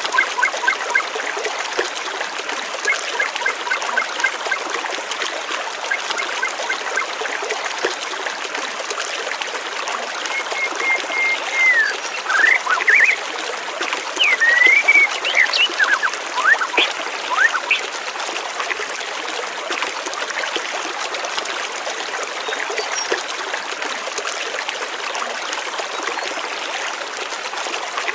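Water trickling and flowing steadily, with birds chirping over it: a run of short repeated notes in the first few seconds, then a cluster of rising and falling calls from about ten to seventeen seconds in.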